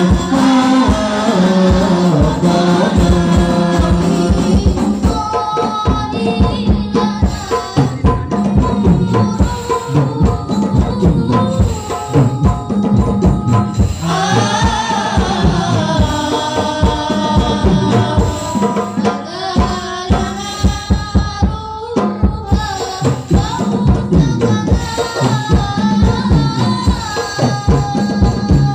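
Hadroh ensemble performing sholawat: voices singing together into microphones over fast, continuous hand-played frame drums.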